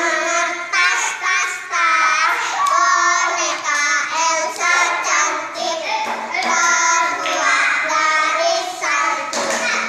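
Children singing a traditional game song together, loud and close, in short sung phrases.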